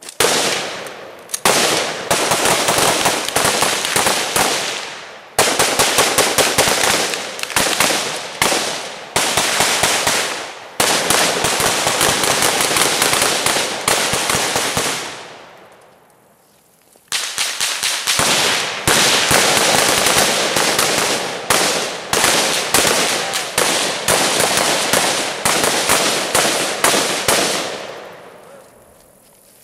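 Several rifles firing rapid, overlapping shots in a continuous volley as a squad shoots at targets, with a brief lull about halfway through and the firing dying away near the end.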